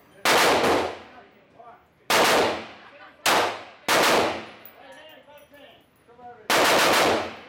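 Glock 19 9mm pistol gunfire: single shots about a second apart, each trailing off in echo, then near the end a quick burst of three or four shots close together.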